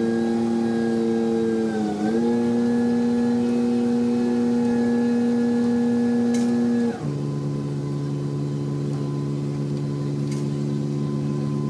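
Liebherr mobile crane's engine running steadily under load as it swings the suspended bridge. It dips briefly about two seconds in, then drops suddenly to a lower pitch about seven seconds in and runs on steadily.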